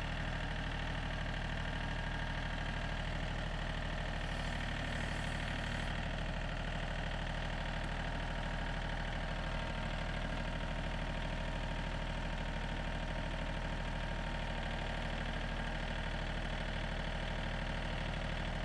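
John Deere tractor engine idling steadily, running the front loader forks.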